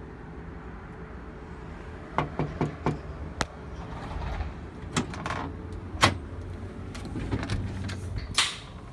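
Four quick knocks on a door about two seconds in, then scattered knocks and clicks over a steady low hum.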